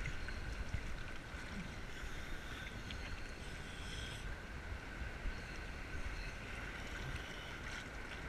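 Sea water sloshing and lapping around divers floating at the surface, with a steady high faint whine over it.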